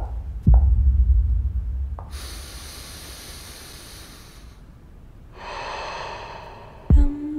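A man breathing deeply through the mouth: two long, airy breaths, after a low rumble in the first second and a half. Near the end a low hit lands and a steady musical tone begins.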